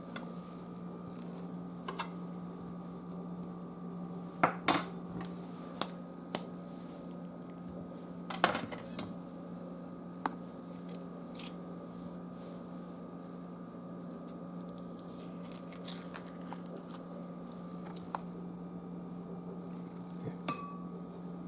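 Kitchen utensils knocking and clinking against dishes: scattered single taps, with a quick cluster about halfway through. A steady hum runs underneath.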